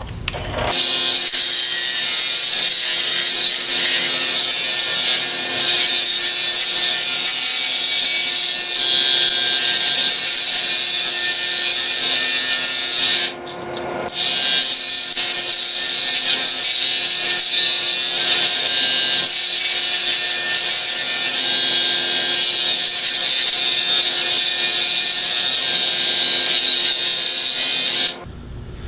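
Scroll saw running, its thin blade stroking up and down as it cuts a curved shape out of half-inch birch plywood with a steady buzzing saw noise. It starts just after the beginning, stops for under a second about halfway through and starts again, then stops shortly before the end.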